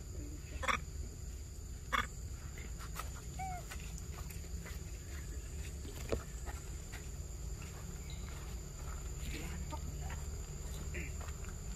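Forest ambience: a steady high-pitched insect drone over a low rumble, with a few short chirping calls and three sharp clicks.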